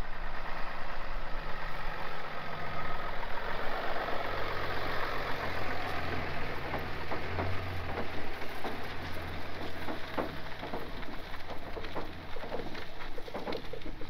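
Pickup truck engine running as it tows a loaded flatbed trailer slowly across grass, with a few knocks near the end.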